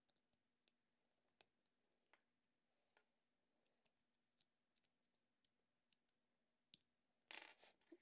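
Faint, scattered ticks and scrapes of a thin metal blade tip picking brim material off a 3D-printed plastic part, with a short, louder scrape a little after seven seconds.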